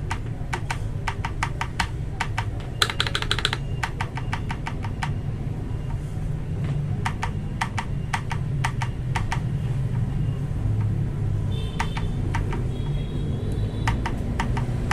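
Keys of a mechanical keyboard fitted with Akko Matcha Green switches being pressed: irregular clicks, with a quick flurry of strokes about three seconds in, over a steady low hum.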